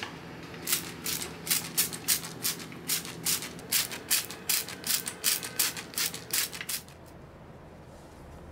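Hand trigger spray bottle spritzing in quick squeezes, about three a second, some twenty short hissing sprays that stop about seven seconds in.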